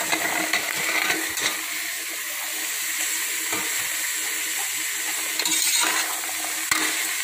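Mixed chopped vegetables sizzling in hot oil in a pressure cooker as they are sautéed, with a perforated metal ladle stirring them and scraping and clinking against the pot now and then.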